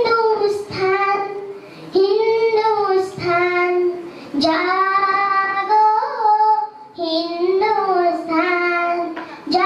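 A young girl singing solo into a handheld microphone, unaccompanied: long held notes in phrases, with short breaths between them.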